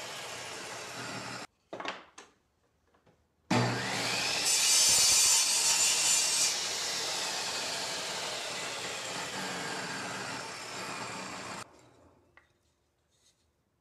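A table saw: a short stretch of it running cuts off abruptly, a couple of light knocks follow, then the saw starts up about three and a half seconds in. It grows louder and brighter for about two seconds as the blade cuts through a wooden board at a 45-degree mitre, then runs on steadily and stops sharply near the end.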